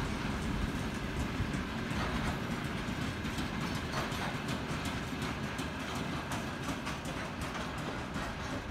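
Freight train of covered hopper wagons rolling past: a steady rumble of steel wheels on the rails, with rapid clicking as the wheels cross rail joints. The sound eases slightly toward the end as the train draws away.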